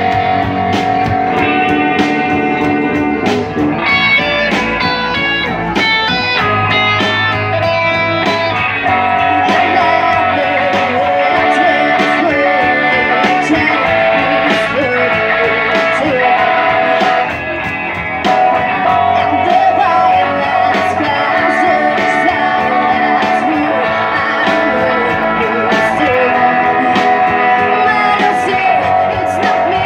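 Live rock band playing: amplified electric guitars and a drum kit, with sung vocals. The band drops away briefly about seventeen seconds in, then comes back in.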